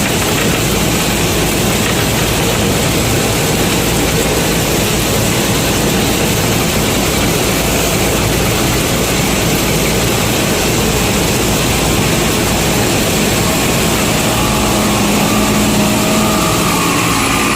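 A rice combine harvester's diesel engine running hard and steady under load, with the threshing machinery going. A higher steady tone joins in briefly near the end.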